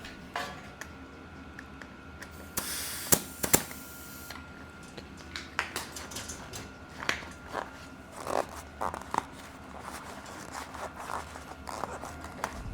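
A mountain bike tire and its foam insert being worked onto the rim by hand: irregular scraping and rubbing with sharp clicks. A rasping scrape about three seconds in carries two loud snaps.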